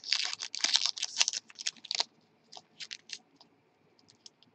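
Foil trading-card pack crinkling and crackling as it is handled in the hands: a dense run of small crackles for about two seconds, then only a few scattered ones.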